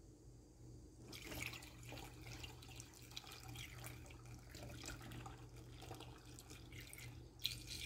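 Faint trickle of a liquid laundry soap mixture poured in a thin stream from a paper cup through a plastic funnel into a plastic gallon jug, starting about a second in.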